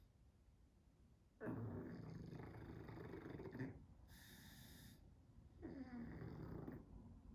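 Pug snoring in its sleep: two long snores, the first starting about a second and a half in and the second near the end, with a hissing breath out between them.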